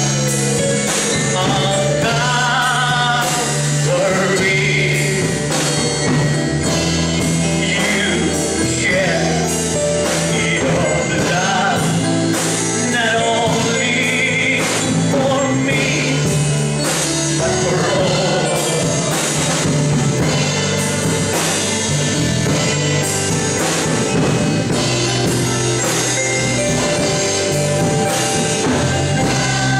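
Live gospel worship music: a voice singing over an amplified band with a drum kit and sustained instrument chords.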